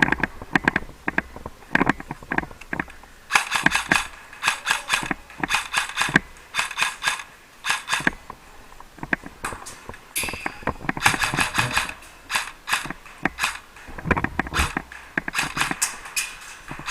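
Airsoft guns firing in several bursts of rapid shots, heard as quick runs of sharp clicks.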